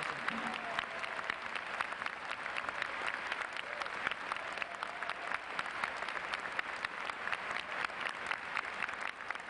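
Large audience applauding: many hands clapping at once in a dense, steady round of applause.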